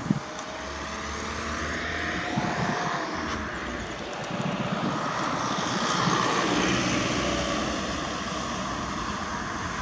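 Fixed-wing aircraft passing overhead. Its engine noise swells slowly to a peak about six seconds in, then eases off over steady road traffic.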